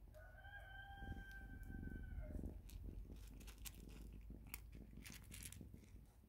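A cat crunching dry kibble, a run of small crisp crunches in the second half. For about the first two seconds a long, steady animal call sounds over it.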